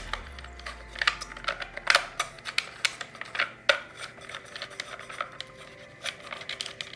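Hands handling a hard plastic speed-controller housing and its metal clamp screws: an irregular run of small clicks and taps.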